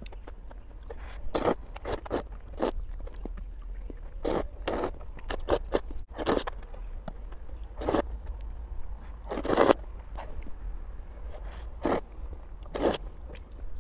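Close-miked eating of noodles in broth: irregular short slurps of noodle strands and wet chewing, with scrapes of chopsticks against the metal pot.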